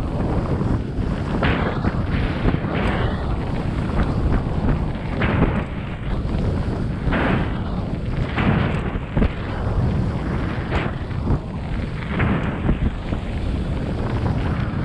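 Wind buffeting the microphone while a bike is ridden off-road, a steady low rumble broken by irregular gusts and knocks.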